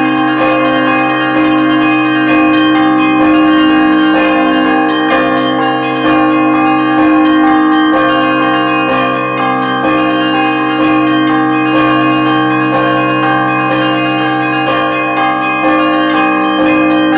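Russian Orthodox church bells ringing the Easter peal: many bells of different pitches struck in quick, unbroken succession, their tones overlapping.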